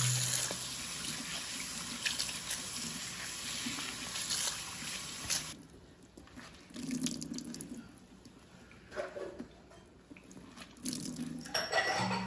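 Kitchen tap running into a stainless steel sink, the stream splashing over wet hair bundles as they are rinsed. About five and a half seconds in, the steady rush drops away abruptly, leaving quieter splashes and drips.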